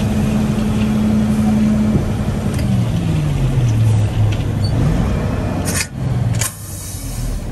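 Dump truck's diesel engine heard from inside the cab, running at raised revs, then slowing down over a couple of seconds and picking up again. Two short sharp noises come near the end.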